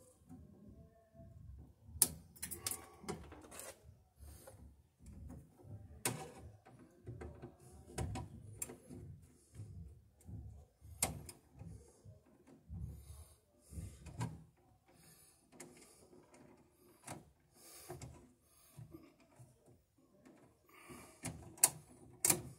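Hands working wires inside a metal electrical breaker panel: scattered clicks, taps and scrapes of wire and metal, with a few sharper clicks about two seconds in, around six and eleven seconds, and twice near the end.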